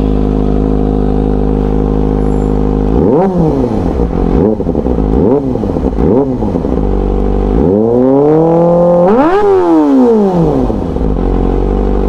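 Kawasaki Ninja ZX-25R's inline-four engine, warm, through an Orion aftermarket slip-on exhaust. It idles at nearly 2,000 rpm, then is blipped four times in quick succession, revved up and held for a moment, pushed higher, and dropped back to idle.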